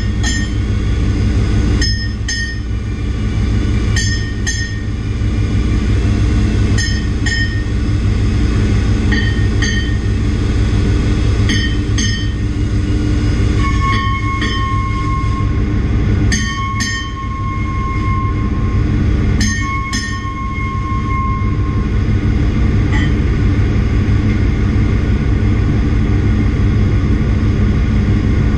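Loud, steady hum of ship's engine-room machinery, carrying through the inside of a large marine engine. Sharp paired clicks come about every two seconds, and three high squeaks of a second or two each sound midway through.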